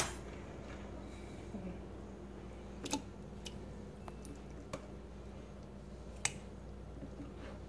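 Metal fork clicking against a plastic blender cup and an open tin can as canned pieces are scooped into the cup: about four sharp, separate clicks spread over several seconds, over a faint low hum.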